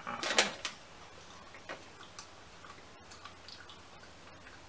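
A short crunchy snap about half a second in as a piece of chocolate bar is bitten off, then scattered faint clicks and crinkles from the pieces and wrapper being handled.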